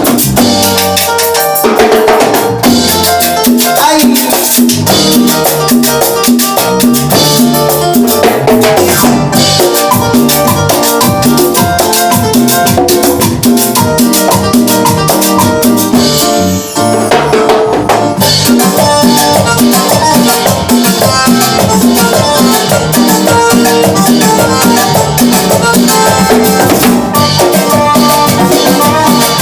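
Salsa-style band music with a drum kit and Latin percussion playing, with a brief break about halfway through.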